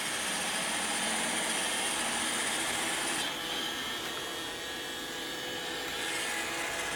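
Roomba 690 robot vacuum running while it cleans the floor: a steady motor and brush noise with a high whine. The whine fades about three seconds in and comes back near the end.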